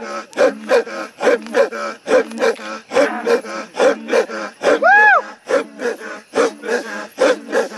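Maasai men's rhythmic guttural chant, deep throat grunts about three a second from the group. About five seconds in, a single higher voice gives one call that rises and falls.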